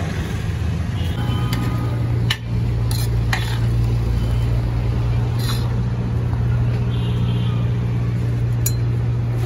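A steady low mechanical hum, with a few sharp clicks and clinks scattered through it.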